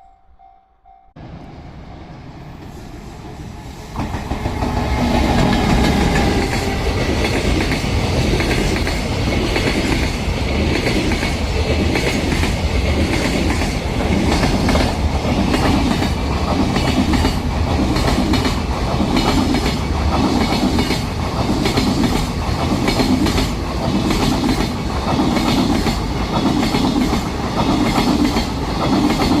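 EF210 electric freight locomotive and its train of freight wagons passing close by over a level crossing. The noise jumps up about a second in and again at about four seconds as the locomotive arrives. It then holds as a steady, loud rumble of the wagons, with a regular clickety-clack of wheels over the rail joints.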